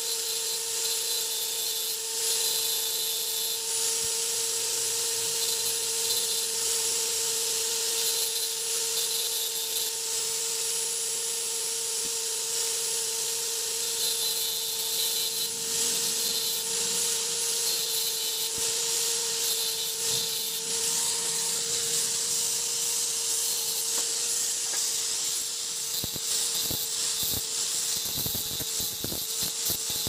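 Electric angle grinder running steadily with a constant high whine, its disc grinding against the steel of a washing machine gearbox. A few sharp knocks come near the end.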